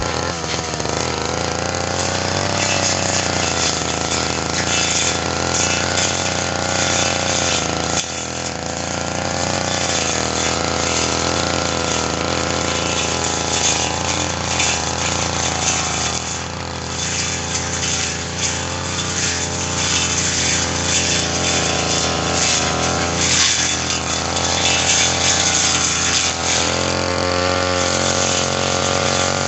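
Brush cutter engine running hard while its blade cuts through ferny grass, with the engine note dipping briefly a few times.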